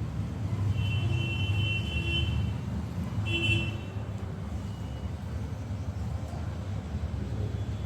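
Steady road-traffic rumble with a vehicle horn sounding twice, first for about two seconds, then a short toot.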